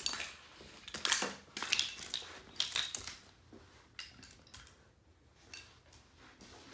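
Small toy trains and cars clattering and clicking together as they are picked up and set down, a quick run of knocks in the first three seconds, then a few scattered clicks.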